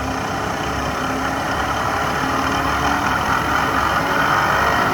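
Microcut 5000VS vertical mill's 5 HP spindle head running, its speed being raised from about 1,000 toward 3,000 RPM. A steady whine grows slowly louder.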